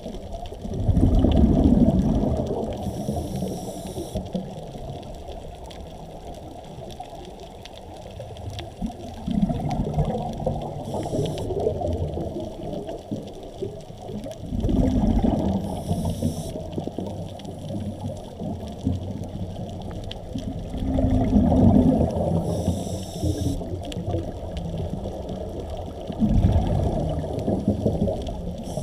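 Muffled underwater water noise heard from a camera below the surface, swelling and easing about every five or six seconds, with brief faint hisses between the swells.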